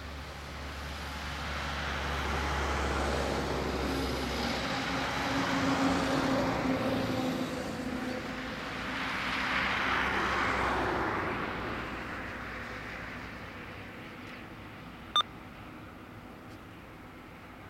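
Jet engines of a Boeing 767 airliner rumbling as it rolls down the runway after landing, swelling twice and then fading away. A single sharp click about fifteen seconds in.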